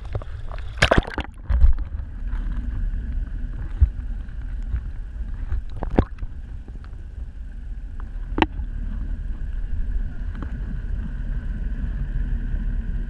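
A splash as a GoPro in its waterproof housing plunges into seawater, then the muffled underwater sound through the housing: a steady low rumble with a faint steady whine and a couple of sharp clicks.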